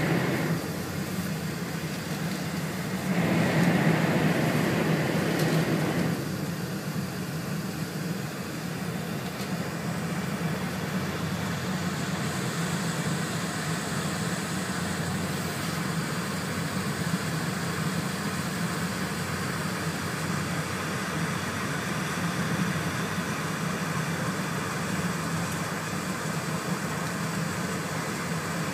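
Cabin noise of an E4 series Shinkansen running at speed: a steady rumble and rush. It is louder for about three seconds near the start, then settles to an even level.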